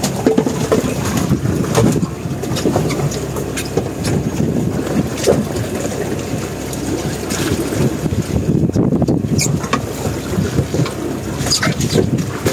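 Wind rumbling on the microphone aboard a small boat at sea, with the sea washing past and scattered small knocks and clicks.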